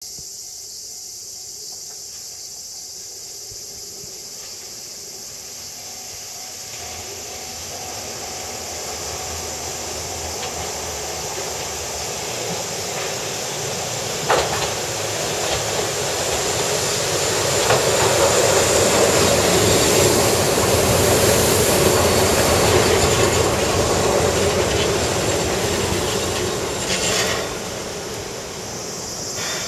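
Keihan Ishiyama-Sakamoto Line electric train arriving at a station. Its running noise and the rumble of wheels on rail build slowly as it approaches, with a few sharp clacks from the wheels. The sound is loudest as it passes close, then eases off as it slows to a stop near the end.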